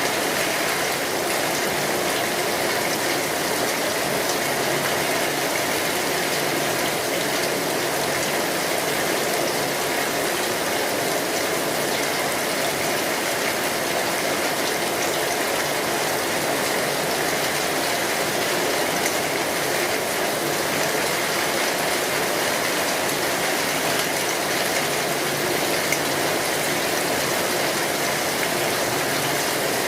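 Steady rain drumming on a metal roof, an even dense patter that does not let up.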